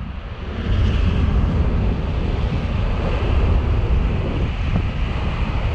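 Tokaido Shinkansen bullet train passing at high speed: a loud, steady rush of air and running noise that swells about a second in and holds, with wind buffeting the microphone.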